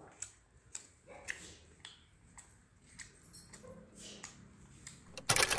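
Faint scattered clicks and small mouth noises of a child eating by hand: chewing and tearing roti over a steel plate. Near the end a sudden loud rush of noise cuts in.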